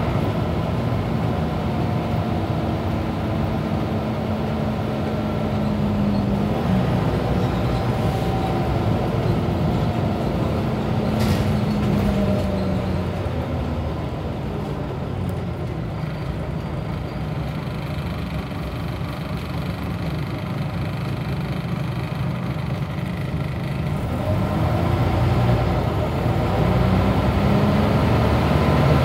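Scania OmniCity bus engine heard from inside the saloon while the bus drives: the engine note climbs and drops back twice, eases off and quietens for a stretch, then climbs again near the end. A short rattle-like click about 11 seconds in.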